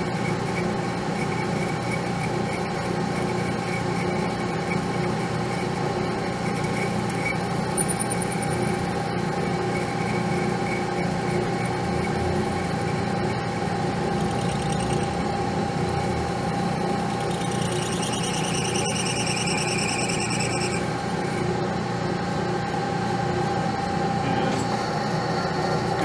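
Metal lathe running with a small boring tool cutting inside the bore of a stainless steel air fitting, a steady machine hum. About two-thirds of the way through, the cut gives a high-pitched squeal lasting roughly three seconds.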